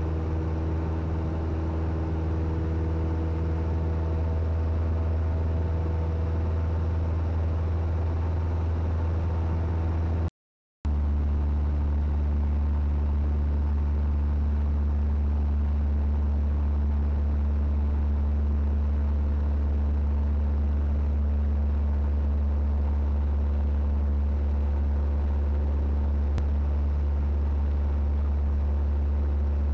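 Cessna 172N's four-cylinder Lycoming piston engine and propeller droning steadily, heard from inside the cabin, at full power in the climb. The sound drops out for a moment about ten seconds in, then carries on.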